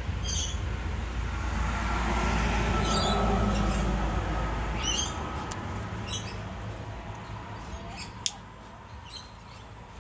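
Blowtorch flame burning with a steady low rush while heating heat-shrink tubing; it dies away about halfway through. A single sharp click comes near the end.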